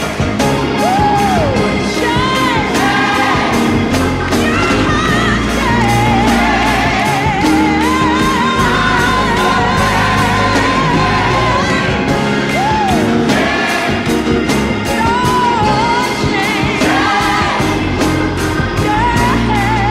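Gospel song: a lead voice singing long, wavering notes with wide vibrato over a band with a steady beat and bass.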